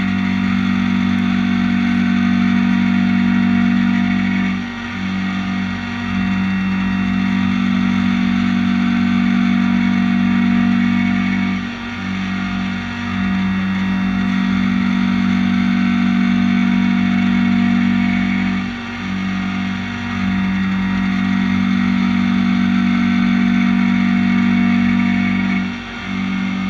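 Samsung SL 25 BMC CNC lathe running with a steady two-pitched machine hum. It breaks off briefly in pairs of short pauses about every seven seconds, as a repeated machining cycle would.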